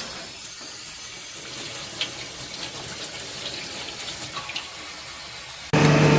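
Steady rushing, hissing noise like running water, with a couple of faint clicks. Near the end it cuts to a much louder sound with a steady low tone.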